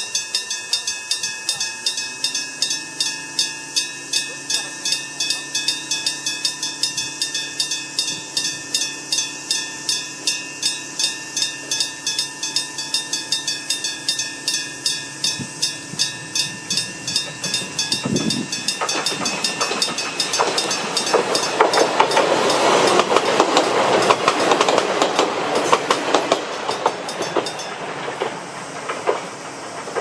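Old-style electric-bell level crossing warning bell ringing with rapid, even strikes, about two and a half a second. About two-thirds of the way through, a diesel railcar passes close by, its wheels clattering over the rail joints louder than the bell, and the bell stops near the end.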